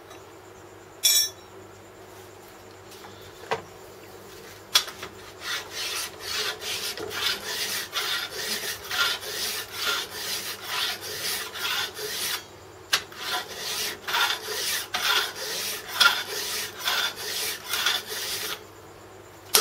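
Body filler file with curved teeth rasping across an aluminium part held in a vise, in steady back-and-forth strokes about two a second, taking the surfaces down. A few single scrapes come first, and the filing stops shortly before the end.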